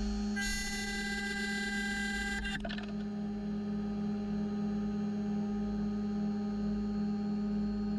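CNC mill spindle whining as a 5 mm end mill cuts aluminium plate, with a shrill, many-toned cutting squeal. About two and a half seconds in, the squeal cuts off abruptly with a short crack as the end mill gives out, and the machine's steady hum carries on.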